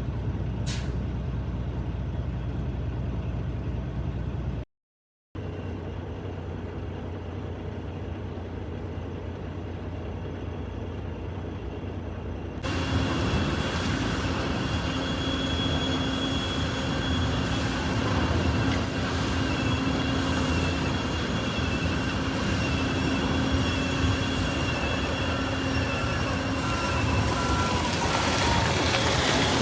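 Heavy diesel engine running steadily. About halfway through it steps up abruptly in level, and a steady hum and a thin high whine join it.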